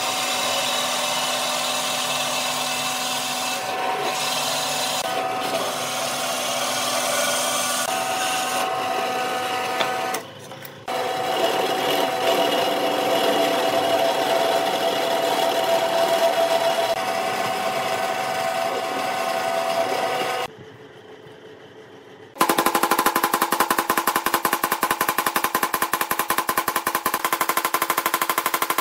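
Bench drill press running with a steady motor hum, a hole saw cutting through a pine board and then a drill bit boring through a wooden disc. Near the end the drilling stops and a hammer strikes a stack of wooden discs in a rapid, even series of sharp blows.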